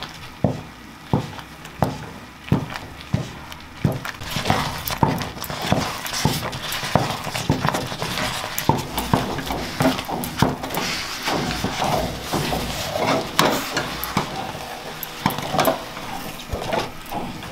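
Wooden spatula stirring finger-millet dhido in a metal pot. At first it knocks against the pot about one and a half times a second; about four seconds in, it turns to a faster, denser scraping and slapping as the thick millet dough is beaten.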